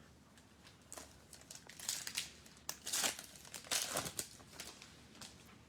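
A trading-card pack wrapper being torn open and crinkled in the hands: a run of irregular crinkles and rips, loudest through the middle.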